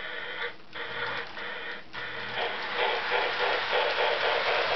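Lionel 1818 model steam locomotive's onboard sound system sounding a held whistle, broken twice in the first two seconds. Then the train moves off along the track with quick, even chuffing that gets louder about halfway through.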